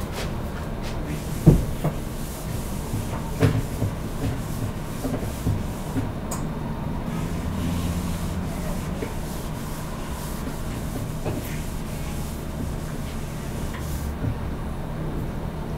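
Whiteboard eraser rubbing across the board as the writing is wiped off, over a steady low hum. A sharp knock comes about a second and a half in, with a few smaller knocks over the next few seconds.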